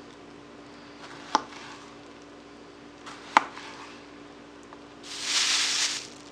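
Two sharp knocks of a kitchen knife on a cutting board, about two seconds apart, as a tomato is cut up. Near the end comes about a second of louder rustling hiss.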